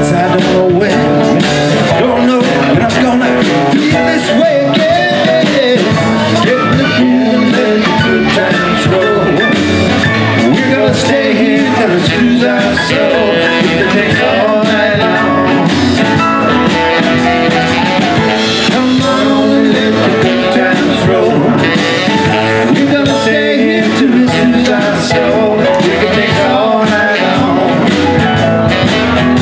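Live band playing a loud blues-rock number on drum kit, electric bass, acoustic guitar and saxophone.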